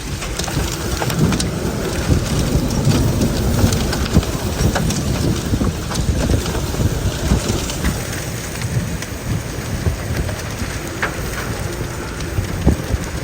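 Heavy rain in a severe thunderstorm, with strong gusty wind rumbling on the microphone and many sharp ticks of drops striking nearby surfaces.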